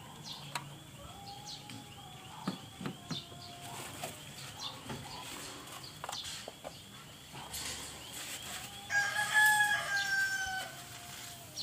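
A long drawn-out bird call, held and falling slightly at its end: faint about a second in, and loud from about nine seconds in. Light clicks and knocks of the plastic oil filler cap and funnel being handled at the engine run beneath it.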